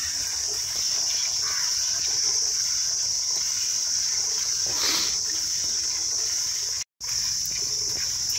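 Water buffalo being milked by hand: streams of milk squirt into a steel bucket, under a steady high-pitched chorus of crickets.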